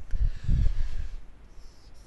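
Heavy, muffled low bumps and a brief rustle on a headset microphone as its wearer moves across a whiteboard: movement or breath noise on the close mic. There are two main bumps in the first second.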